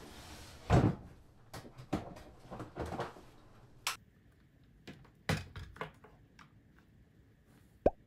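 Knocks, clunks and clicks of things being handled in a small room: a heavy thump about a second in, a run of knocks after it, then lighter separate clicks and a sharp click near the end.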